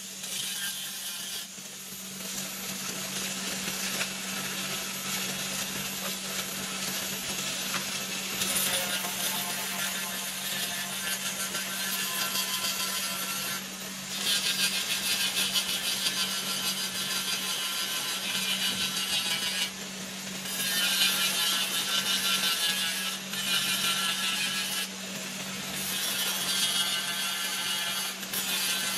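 Electric angle grinder running with an abrasive disc ground against the steel reel blades of a manual reel lawn mower, sharpening them. A steady motor hum runs under a high grinding hiss that grows louder in several stretches of a few seconds as the disc bites into the blade, easing between them.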